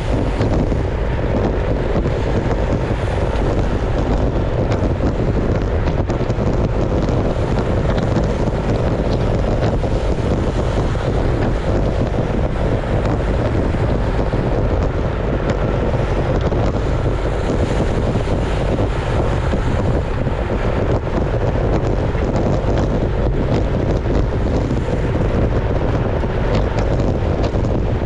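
Steady wind rushing over the microphone of a camera mounted on a moving road bike, riding in a pack of cyclists.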